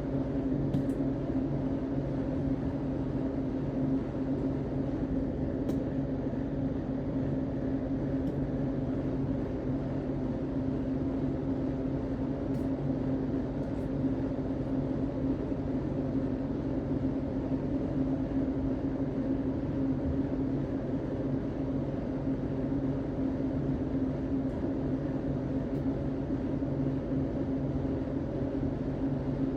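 Steady mechanical hum with a few constant low tones, unchanging throughout.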